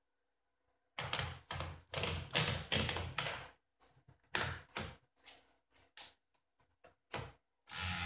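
1949 Royal Quiet De Luxe manual typewriter being loaded with paper: the platen is turned by its knob, and the line-space ratchet clicks in quick runs as the sheet rolls in. Separate clicks and knocks follow as the paper and bail are set.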